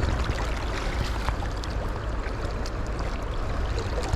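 Steady rush of flowing river water, with a strong low rumble and a few faint clicks.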